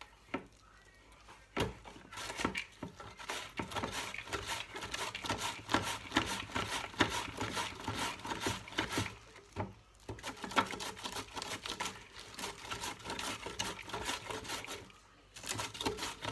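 A head of white cabbage being shaved into thin shreds on a stainless steel GEFU mandoline slicer. It gives quick, repeated crisp slicing strokes, starting about a second and a half in, with a short pause about halfway through and another near the end.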